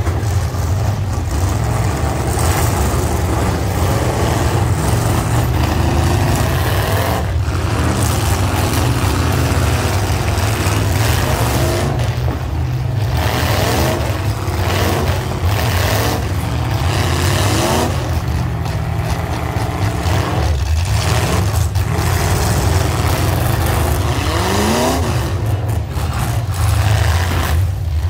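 Several demolition derby cars' engines running loud together, revs repeatedly climbing and dropping as the drivers accelerate and back off, over a constant heavy engine drone.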